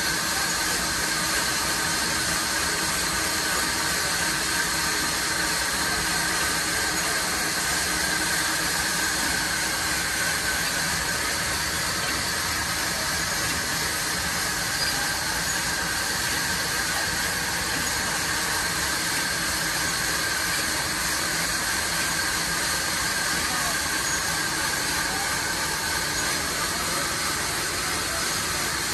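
Horizontal band sawmill running steadily, its blade cutting through a log on the carriage, a constant whine over a steady hiss.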